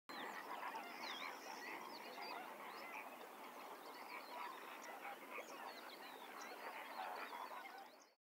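Dense chorus of many animals calling at once, a continuous mass of short overlapping squeaks and chirps. It cuts in suddenly and fades out near the end.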